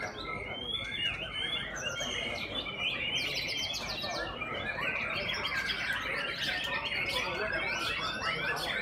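Many caged white-rumped shamas (murai batu) singing at once in competition: a dense, unbroken chorus of overlapping quick song phrases and trills.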